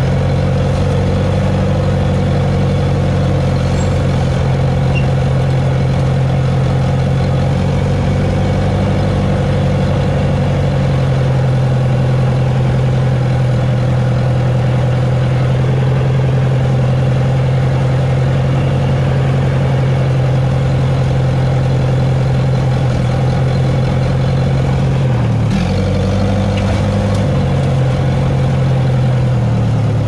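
Case 450C crawler dozer's diesel engine running steadily while finish grading. Its note dips briefly about 25 seconds in, then carries on at a slightly different pitch.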